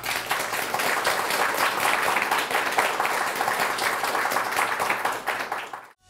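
Applause from many hands clapping, steady, fading out near the end.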